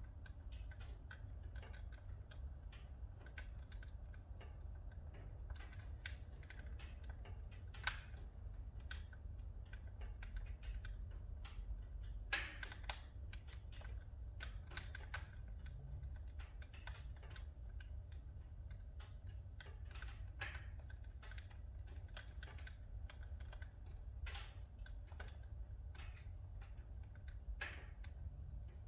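Oak firewood crackling as it burns in a wood-burning fireplace stove: a constant irregular patter of small snaps and pops, with a couple of louder pops about eight and twelve seconds in.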